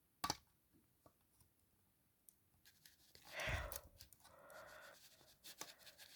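Faint handling noises: a click just after the start, then a brief rustle a little past the middle and a softer rustle after it.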